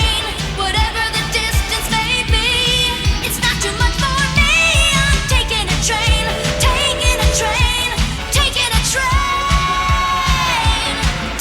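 1980s pop-rock song with a sung lead vocal over a steady drum beat; near the end the singer holds one long note.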